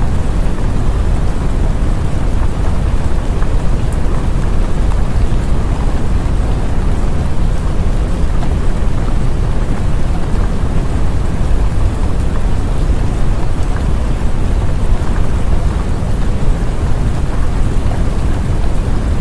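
Steady rain sound, an even wash of noise heavy in the low end, running without a break and with no distinct thunderclaps.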